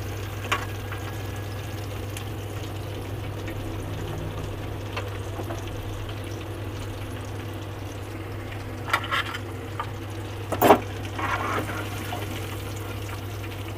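Hot oil bubbling steadily in a metal pan as fried chicken fingers are lifted out. A few clinks of a metal slotted spoon and fork against the pan come about nine seconds in, the loudest about ten and a half seconds in.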